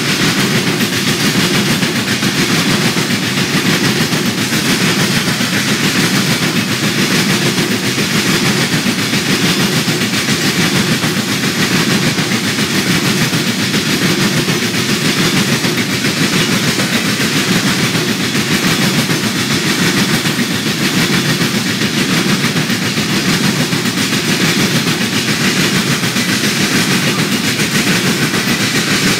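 Covered grain hopper cars of a freight train rolling past, steel wheels on the rails making a steady rumble and clatter.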